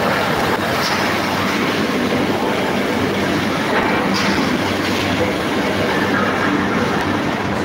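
Train running, heard from aboard: a loud, steady rattle of wheels over the rails.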